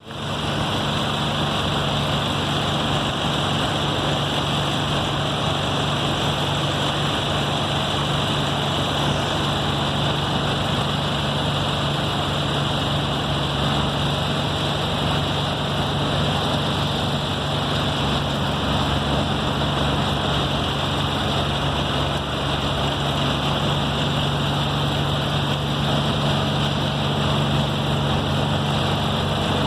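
Heavy road-construction machinery with its engine running steadily, a low, even engine hum with a steady higher whine over it.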